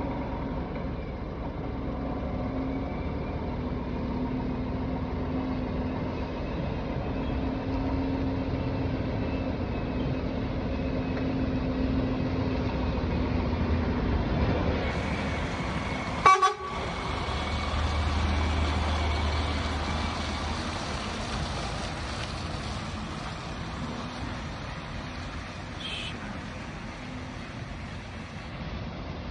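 DAF XG lorry's diesel engine running steadily as it drives through a yard, with one short loud horn toot a little past halfway, followed by a deep low rumble as the truck passes close by.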